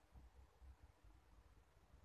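Near silence: room tone with a faint, uneven low rumble.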